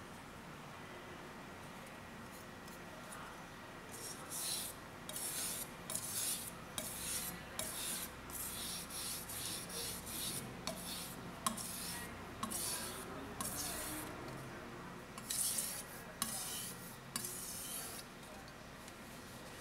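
Steel kitchen-knife blade (a Japanese gyuto) pushed back and forth across an Okudo suita natural whetstone: a scraping rasp with each stroke, about two strokes a second, starting about four seconds in and stopping shortly before the end.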